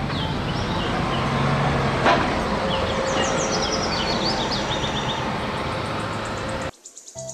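Double-decker bus engine running as the bus pulls away, with traffic noise and birds chirping again and again over it. The sound cuts off abruptly near the end, leaving faint music.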